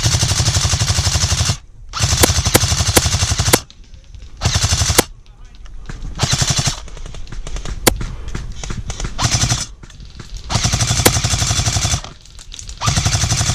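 Airsoft guns firing full-auto in repeated bursts of rapid clicking, each about half a second to a second and a half long, with short pauses between them. There are about seven bursts.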